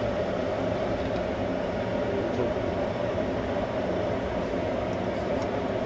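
Steady mechanical drone of a cruise ship's machinery, heard from an open deck while the ship is under way.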